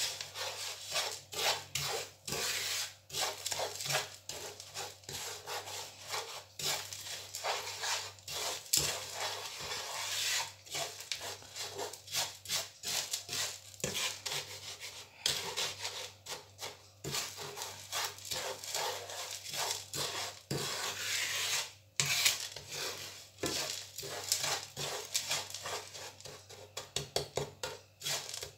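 Wooden spoon stirring and scraping granulated sugar around a non-stick frying pan: a continuous gritty rubbing in irregular strokes as the sugar dry-melts and clumps.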